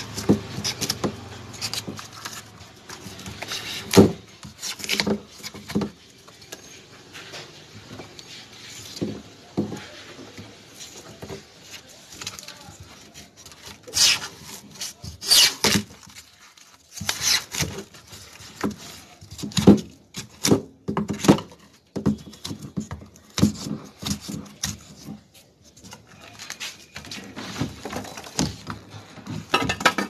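Irregular scraping, rubbing and knocking of a screwdriver probing and prying at the taped top rim of a chest deep freezer's cabinet, while hunting for the buried capillary tube. A sharp knock comes about four seconds in, and louder scrapes cluster around the middle.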